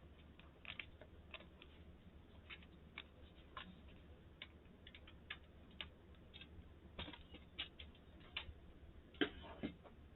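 Faint, irregular light clicks and taps from handling a laptop's plastic bottom case and its captive screws, with a louder cluster of clicks near the end.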